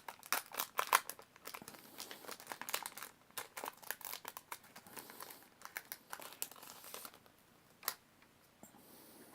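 Foil wrapper of a Pokémon card booster pack crinkling and being torn open, in dense crackles for about seven seconds, then only a few scattered crackles.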